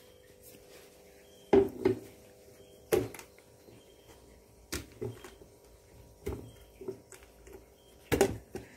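Steel kitchen vessels knocking and clinking as thick rice-and-dal batter is handled between a steel bowl and a mixer-grinder jar. The knocks come singly and in pairs with quiet between, the loudest about a second and a half in and near the end.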